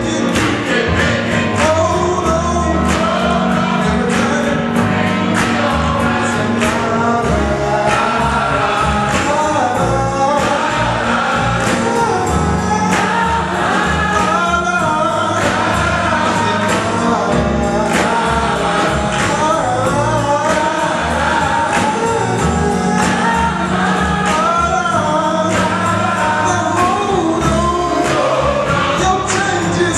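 Gospel choir singing over accompaniment with low bass notes and a steady beat.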